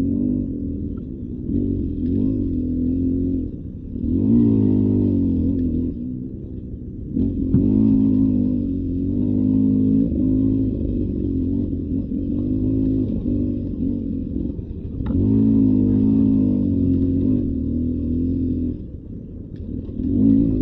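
Beta 300 RR Racing two-stroke dirt bike engine, its pitch rising and falling as the throttle is worked on the trail. It surges every few seconds and drops briefly near the end.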